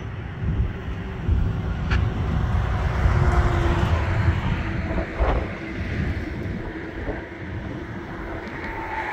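Wind buffeting the microphone over a steady distant rumble of traffic; the heavy low gusting stops suddenly about five seconds in.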